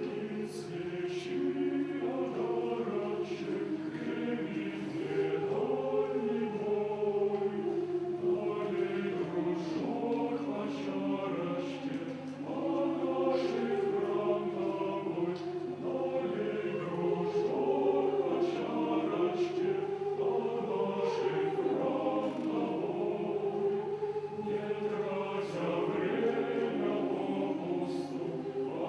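Choir singing a slow song in several voice parts, the sung words' s-sounds showing through regularly, over a steady low held tone.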